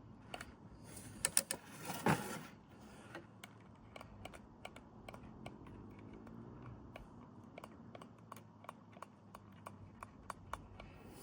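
Hand pump oiler clicking in light, irregular taps as oil is squirted onto a Teletype Model 35 typing unit's mechanism, with a few louder clicks about one and two seconds in.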